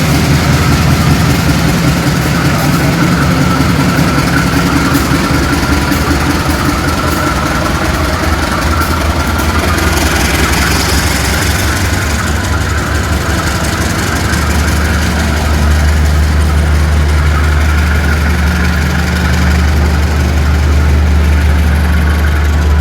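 GE diesel-electric locomotive engine running loud under throttle, its deep engine note growing stronger about fourteen seconds in as the locomotive accelerates. A brief hiss sounds about ten seconds in.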